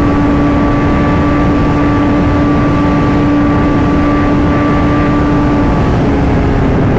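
Kawasaki ZX-10R's inline-four engine running at a steady engine speed under loud wind rush; near the end the engine note drops.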